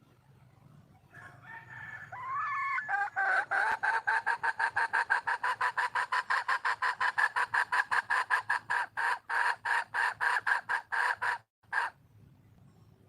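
Red junglefowl hen calling for a mate: a few rising notes, then a fast, even run of clucking notes, about five a second, for some eight seconds, ending with one separate note.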